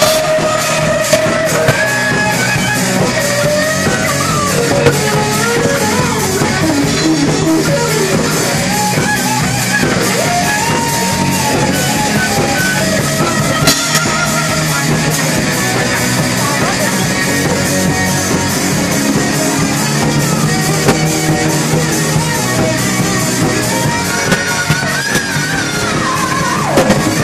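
Rock band playing live: guitar lines over a drum kit, with little singing, loud and continuous.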